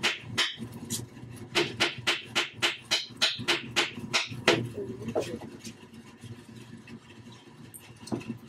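Hammer driving a nail into a wooden 2x4 frame: quick strikes, about three a second, stopping about four and a half seconds in, then a couple of single taps.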